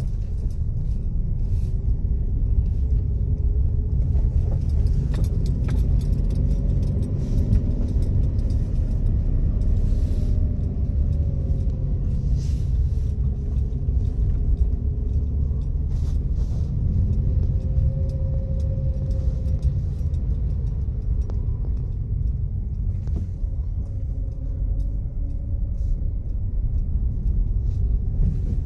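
A motor vehicle running: a continuous low rumble with an engine note that slowly rises and falls, and a few light clicks and rattles.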